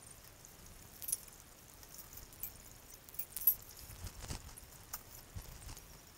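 Metal sluice box parts, the expanded-metal riffle tray and riffle bars, clinking and knocking as they are lifted out and handled. Scattered single clinks, the loudest about three and a half and four seconds in.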